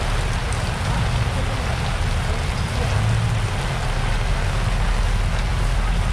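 Heavy typhoon rain pouring steadily onto wet pavement and market tarpaulins, with a low rumble underneath.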